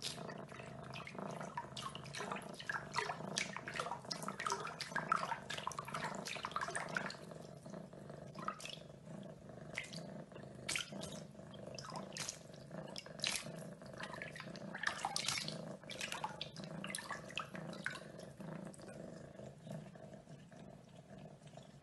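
A cat pawing at water in a bathroom sink basin: a long run of small, irregular splashes and slaps, thickest in the first several seconds and again in the middle, over a steady low hum.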